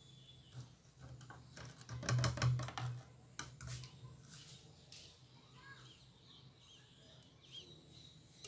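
Metal clinking and knocking against a steel jar as the pliers are fished out of the electrolysis solution, a cluster of sharp knocks about two seconds in, then a few lighter clicks.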